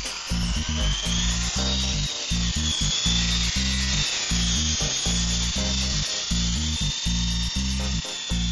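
Background music with a steady bass beat, over the high, steady whine of the antique Honey Bee electric RC helicopter's small motor and spinning rotor as it hovers.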